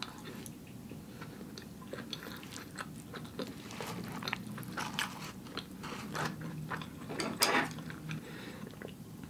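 A person chewing a mouthful of food close to the microphone: an irregular run of small, soft mouth clicks and smacks, with a louder one about seven and a half seconds in.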